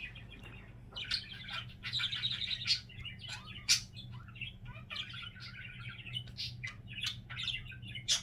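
Pet budgerigar warbling: a fast, continuous run of chirps, clicks and scratchy chatter, with a sharp loud click about three and a half seconds in.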